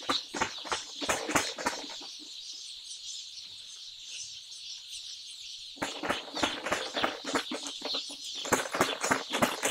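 A dense crowd of broiler chicks peeping continuously, a shrill chorus of many short overlapping calls. The close, loud peeps fall away for a few seconds from about two seconds in, leaving only the steady distant chorus, and come back about six seconds in.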